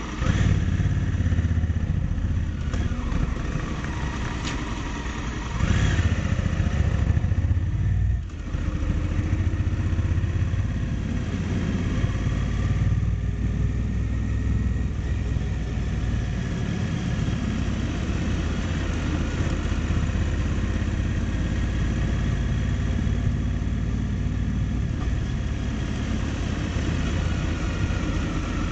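A motorcycle's engine runs as it rides through traffic, with steady road and wind noise picked up by its drive recorder. It gets louder for about two seconds from around six seconds in, then dips sharply for a moment about eight seconds in.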